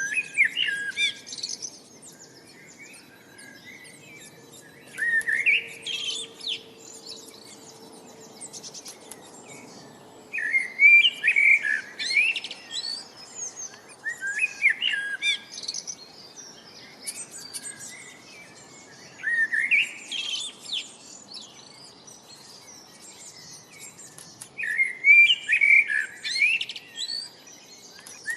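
A songbird singing a short phrase of quick chirps, repeated about every five seconds, with fainter chirps from other birds in between.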